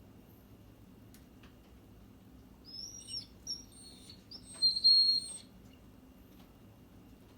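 Small bird singing: a run of high chirps and short whistled notes starting about two and a half seconds in and lasting about three seconds, loudest near the end of the run.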